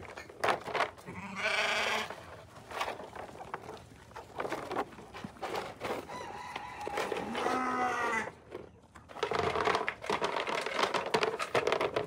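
Sheep bleating: two long, wavering calls about five seconds apart, with a stretch of rustling noise near the end.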